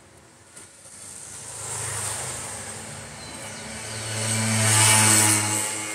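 A motor or engine hum at a steady pitch, first swelling about two seconds in, then growing loudest around four to five seconds in before easing off.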